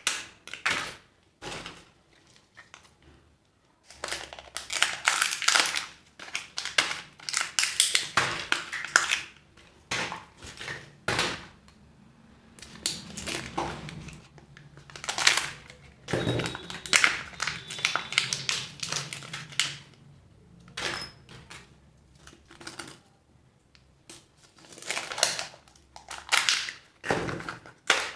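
Surprise-egg packets being handled and opened: plastic wrappers crinkling and crackling with sharp clicks and taps, in irregular bursts separated by short pauses.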